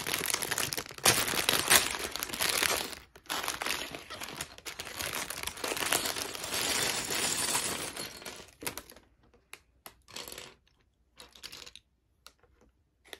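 Plastic LEGO parts bag being torn open and crinkled, with a few sharp crackles in the first two seconds. About nine seconds in the crinkling stops and gives way to scattered small clicks of plastic pieces being handled.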